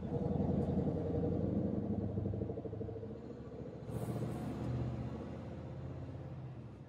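Scania 770 S's V8 diesel engine pulling under load, heard from inside the cab as a steady low purr, with a brief rise in level about four seconds in.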